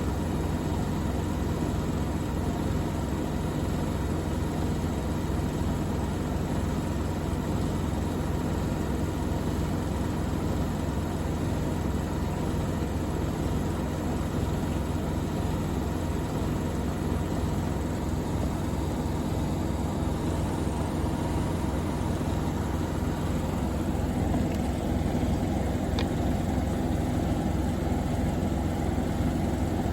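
Two Bosch washing machines, a Serie 4 and a Logixx 8, in their final spin at up to 1400 rpm: a steady motor-and-drum hum with a low, even pulsing. The sound shifts a little about three quarters of the way through.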